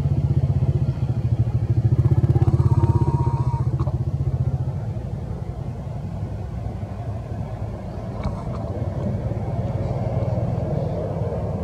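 A motor engine running with a low, pulsing drone, loudest for the first four seconds and then quieter.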